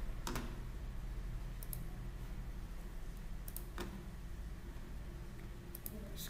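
Computer mouse clicking: two distinct clicks about three and a half seconds apart, with a few fainter, sharper ticks between them, over a steady low hum.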